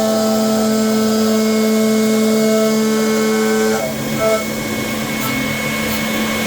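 CNC router spindle with a 10 mm bit running and cutting a shallow 1.5 mm pass, a steady hum made of several tones. A little before four seconds in the tones break off and the sound turns rougher and a little quieter.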